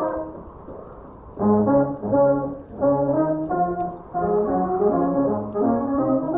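Vintage dance-band music with brass instruments playing an instrumental passage, muffled as if heard from another room. Brass chords come in loudly about a second and a half in.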